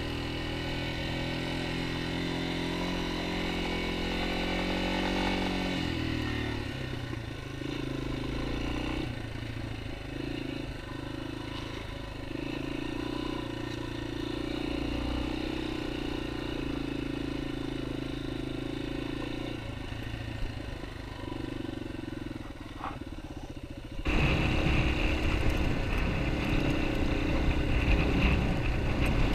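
Yamaha XT250 dual-sport motorcycle's single-cylinder engine running on a dirt trail; its pitch drops about six seconds in as the bike slows, then holds fairly steady with small wavers. About four seconds before the end the sound jumps abruptly to a louder, rougher engine-and-rumble mix on a gravel road.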